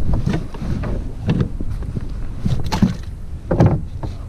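Several knocks and scrapes of gear being handled against the plastic deck and front hatch cover of a sit-on-top kayak, about four in all, over a steady rumble of wind on the microphone.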